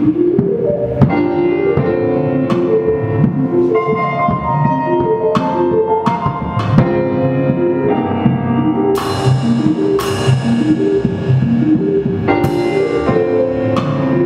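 Live improvised music on drum kit and electronic keyboard: quick, repeating runs of keyboard notes over the drums, with three cymbal crashes that ring on in the second half.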